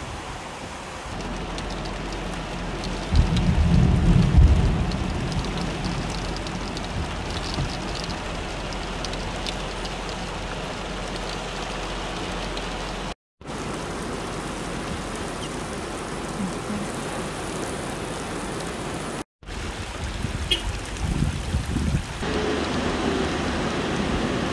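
Heavy rain and muddy floodwater rushing down a rocky wadi, a steady noisy hiss. A loud low rumble swells about three seconds in, and the sound drops out briefly twice.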